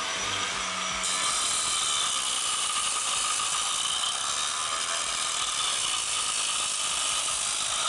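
Angle grinder with a cutting disc grinding into a block of soft stone under load during rough shaping: a steady high whine over dense grinding noise, a little louder after about a second.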